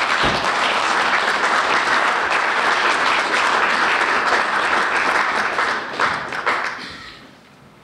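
Audience applauding, starting straight away and fading out over the last second or so.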